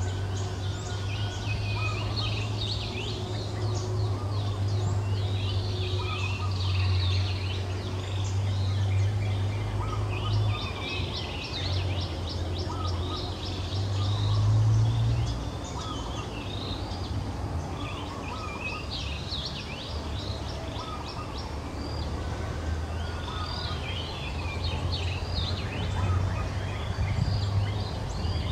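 Outdoor ambience: birds chirping and trilling on and off over a steady low rumble, which swells briefly about halfway through.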